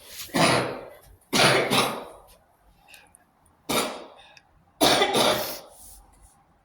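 A person coughing: four harsh coughs in two pairs, each starting sharply and fading over about half a second.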